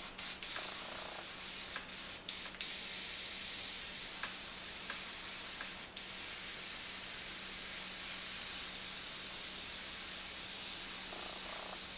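Airbrush spraying paint: a few short bursts of hissing air at first, then a steady hiss with one brief break about six seconds in.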